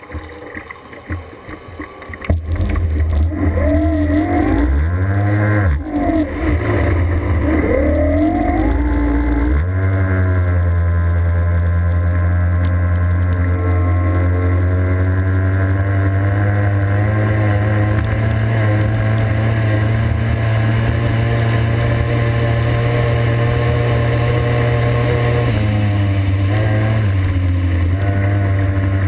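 A race boat's engine heard from on board, first rising and falling in pitch several times as it comes up to speed, then running steadily at high speed, with a brief drop in pitch about 25 seconds in.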